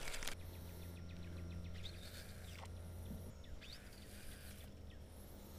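Faint outdoor birdsong, a few short chirps, over a low steady hum.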